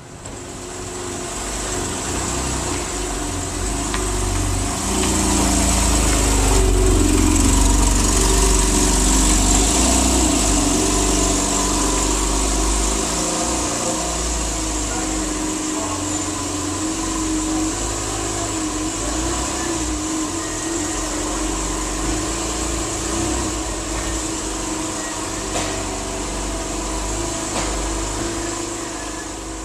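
Porsche 911 (991) flat-six engine running at a steady idle, a little louder between about five and twelve seconds in.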